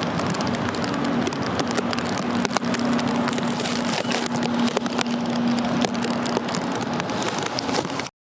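A steady low engine hum under a dense rush of outdoor noise with frequent small crackles, cutting off suddenly near the end.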